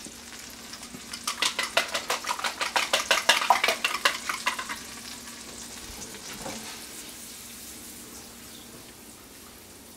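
Omelette filling ingredients sautéing in melted butter in a frying pan over low heat, stirred with quick scraping strokes about five a second for a few seconds. After that they are left to sizzle faintly.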